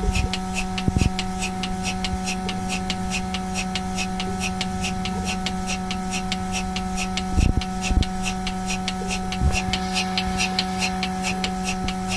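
Milking machine running on a cow: a steady electric hum from the vacuum unit with an even, rapid pulsing hiss from the pulsator and teat cups, a few beats a second. A few soft knocks come around the middle as the cluster is handled.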